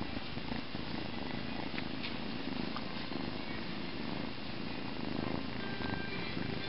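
Kitten purring steadily while being petted, very close to the microphone.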